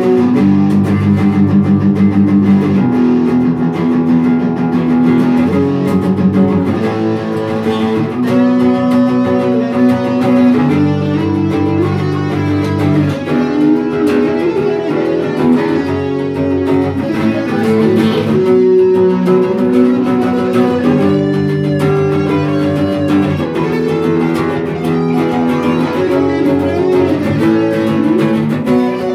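A sunburst single-cut electric guitar and a nylon-string acoustic guitar playing a metal song together. The electric plays a lead line with held, bent and wavering notes over the acoustic's rhythm chords.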